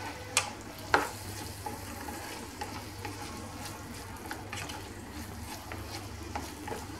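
Silicone spatula stirring minced beef and onion filling in a nonstick frying pan, over a steady low sizzle of frying. A couple of sharp taps against the pan come near the start.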